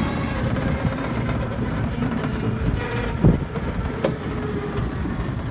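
Ride noise of a small open tricycle rolling along a paved street: steady rattling of its metal frame and road rumble, with one louder bump a little over three seconds in.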